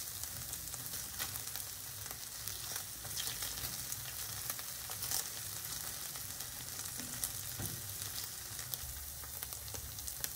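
Sauce-coated tofu strips sizzling in oil in a nonstick frying pan, a steady hiss with scattered small crackles, while a silicone spatula stirs and turns them.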